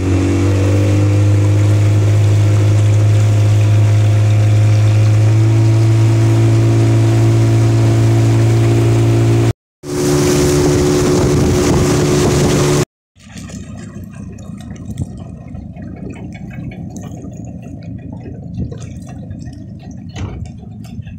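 Small boat's outboard motor running steadily at speed, a loud even drone. It cuts off suddenly twice; after the second break the sound is much quieter, a low even rumble.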